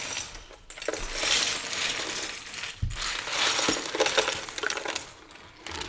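Loose plastic LEGO bricks poured out of a box onto a table, a dense rattling clatter of many small pieces in two long pours with a brief pause between them.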